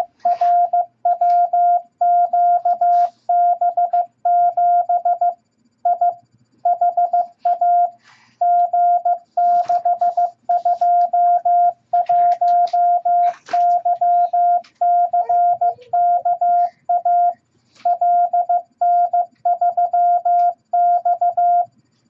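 MFJ-414 Classroom Morse Tutor sending random letters and numbers in Morse code at 15 words per minute: a single steady beep tone keyed on and off in dots and dashes, with short gaps between characters.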